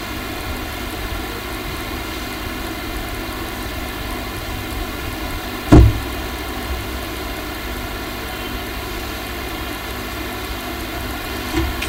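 Steady background hiss with a faint electrical hum from the microphone, and one loud, short thump about six seconds in.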